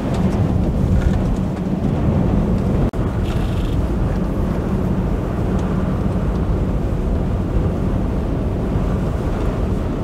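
Steady low rumble of tyre and road noise inside a moving Volkswagen Atlas driving over a snow-covered road, with a faint engine hum underneath. The sound cuts out for an instant about three seconds in.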